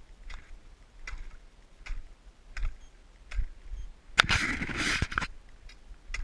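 Footsteps crunching on snow-covered ice at a walking pace, about one step every 0.8 seconds. About four seconds in, a louder rushing scrape lasts about a second.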